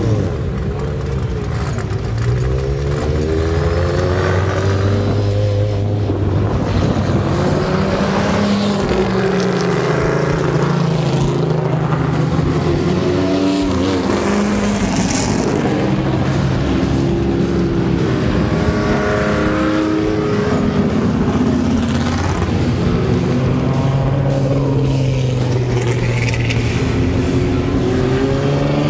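Race car engines running and revving as several cars pull away and drive past, the engine pitch rising and falling again and again with overlapping notes from more than one car.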